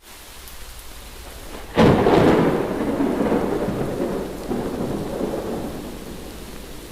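Steady rain, then a sudden clap of thunder about two seconds in that rumbles on and slowly fades over the following seconds.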